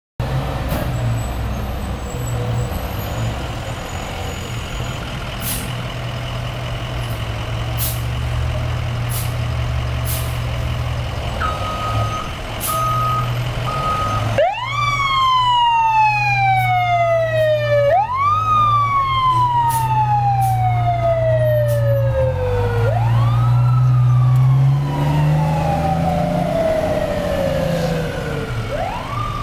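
A 1991 Seagrave fire engine running, then pulling out and revving near the end while its siren sounds four times. Each time the siren climbs quickly and then winds down in a long falling wail. A steady beeping starts before the siren and fades out during it.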